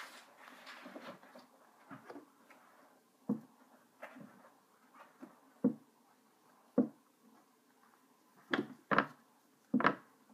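Handling noises of crafting at a table: soft rustling of fabric and cardboard at first, then single sharp taps and knocks every second or two, with three close together near the end.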